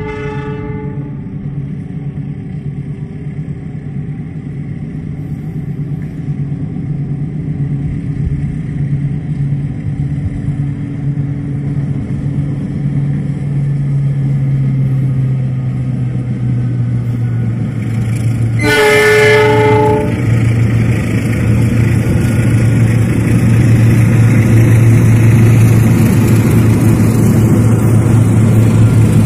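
Diesel locomotive of an approaching passenger train: its engine drone grows steadily louder, with the rumble of wheels on rail building near the end. The horn sounds briefly at the very start and again with a blast of about a second and a half about nineteen seconds in.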